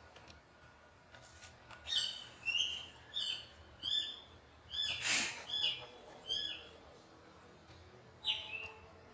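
Infant long-tailed macaque giving a run of short, high, squeaky cries that each fall in pitch, about one every two-thirds of a second. After a pause there is one more cry near the end. A short noisy burst, like a rustle, comes near the middle.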